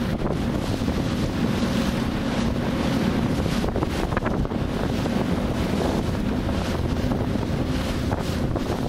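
Rigid inflatable boat under way at speed on choppy sea: heavy wind buffeting the microphone over water rushing and splashing along the hull, with a low steady engine drone underneath.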